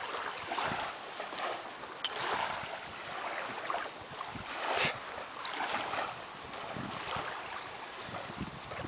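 Small waves washing on a beach, with wind buffeting the microphone. A few short rustles are scattered through, the loudest a sharp one about five seconds in.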